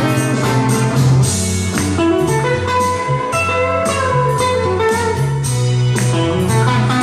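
Background music: a bluesy guitar tune over a steady beat and bass line.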